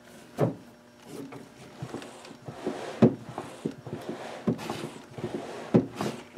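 Reed organ's bellows mechanism worked by hand through its webbing pedal straps: several sharp wooden knocks with creaking and rubbing between them. The noise is unexplained and comes from inside the organ.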